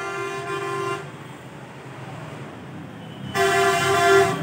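Electric vehicle horn sounding in long, steady blasts. It cuts off about a second in and sounds again, louder, a little over three seconds in.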